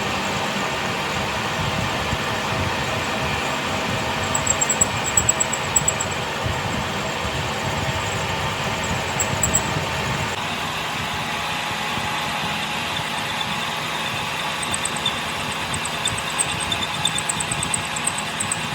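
A workshop machine running steadily with a low rumble, its sound shifting slightly about halfway through, with short runs of faint rapid high ticking.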